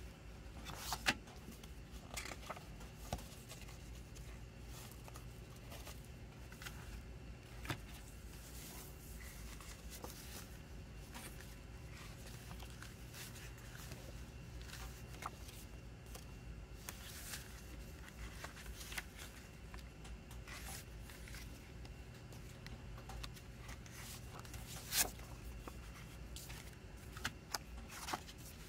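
Hands handling a plastic CD jewel case with its paper booklet and photo card: scattered sharp plastic clicks and short paper rustles, the loudest clicks about a second in and near the end, over a steady low hum.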